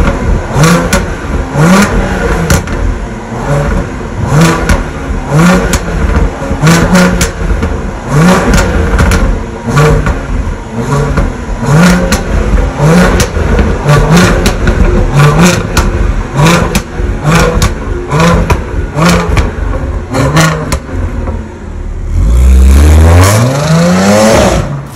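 Audi A7 with a tuned exhaust, its mufflers rebuilt inside for loud pops, blipped again and again, about once a second, with sharp crackles and pops on each lift-off: the tuned 'popcorn' overrun. Near the end the engine rises in one long, loud pull as the car accelerates away.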